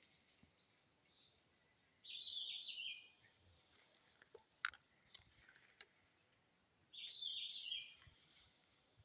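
A bird singing two short phrases of high, rapid chirps, one about two seconds in and one near the end, with a single sharp click between them over faint forest ambience.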